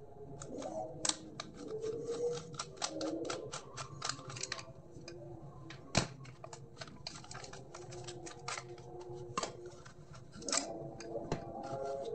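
Small screwdriver and the plastic and metal parts of an Ashley wireless handheld microphone clicking and tapping as the microphone is taken apart. It is an irregular run of light clicks, with the sharpest click about six seconds in.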